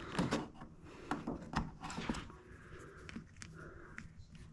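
Faint scattered clicks, taps and rubbing of hands handling the plastic quick-connect fittings and retaining clips of a refrigerator water-line filter housing.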